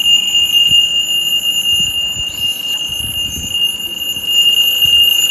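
Vintage Seiko QHK053W alarm watch's piezo beeper sounding its alarm: one loud, steady, high-pitched electronic tone without a break.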